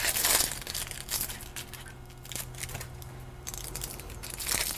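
Dry, papery onion skin crinkling and tearing as an onion is peeled by hand, in scattered crackles that are busiest near the start and again near the end, over a faint steady low hum.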